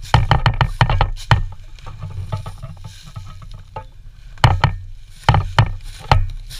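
Footsteps crunching through deep dry fallen leaves, each step a cluster of crackles with a dull thump, in bursts with a quieter stretch around the middle.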